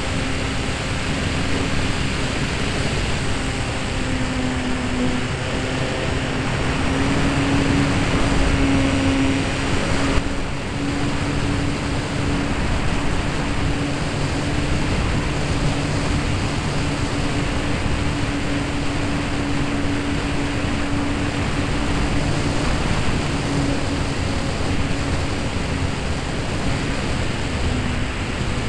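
Onboard sound of a ParkZone Mustang brushless RC foam plane in flight: the electric motor and propeller hum steadily, shifting slightly in pitch with throttle, under heavy wind rush over the camera microphone. A short click about ten seconds in.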